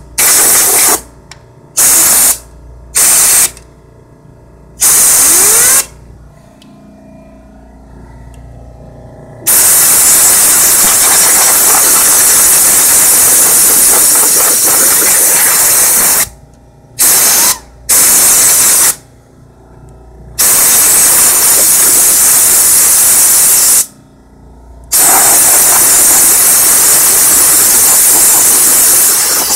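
Air compressor blow gun hissing in on-off blasts, blowing built-up dust out of an open desktop computer case: four short bursts in the first six seconds, then longer blasts of several seconds each with brief pauses between.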